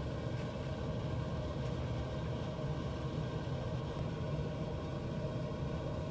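Steady low mechanical rumble, unchanging throughout.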